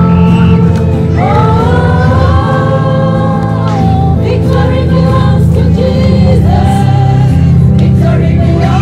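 Gospel music: a choir singing over a loud bass line.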